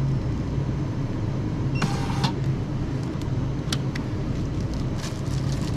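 CAS label-printing shop scale in use: a few key clicks, and about two seconds in a short half-second buzz as its printer feeds out a price label, over a steady low hum.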